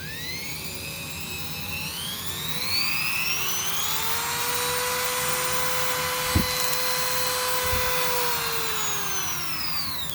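Handheld rotary tool's electric motor switched on: a whine that climbs as the motor spins up, holds steady at speed, then falls away as it is switched off and spins down. A single sharp click about six seconds in.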